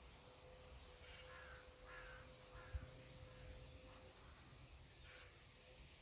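Faint, scattered short harsh calls from a large flock of small black birds flying overhead, over a faint steady hum, with a single low thump a little under three seconds in.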